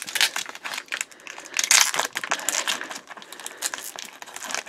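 Clear plastic shrink-wrap packaging crinkling and crackling as hands pull and peel it, a rapid irregular string of crackles, loudest about two seconds in.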